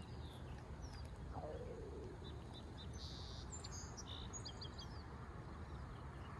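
Wind rumbling on the microphone, with small birds chirping faintly several times in the middle.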